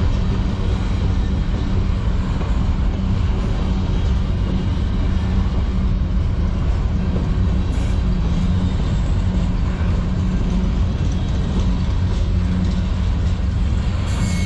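Freight cars of a passing manifest train rolling by: a steady rumble of steel wheels on the rails, with covered hoppers, a boxcar, a loaded centerbeam flatcar and a gondola going past.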